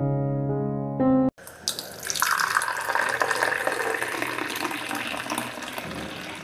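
Soft piano music, then from about a second and a half in, milky coffee poured in a thin stream from a height into a steel tumbler, splashing and frothing as the tumbler fills.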